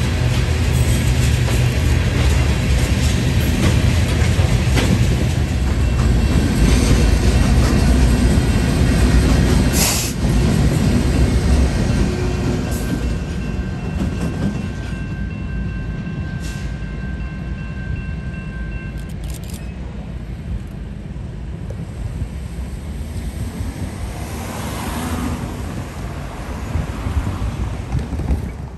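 Freight train rolling past: heavy rumble of a BNSF mixed-freight train's cars on the rails, loudest in the first ten seconds and easing off after. A sharp click comes about ten seconds in, and thin steady whines sound faintly through the middle.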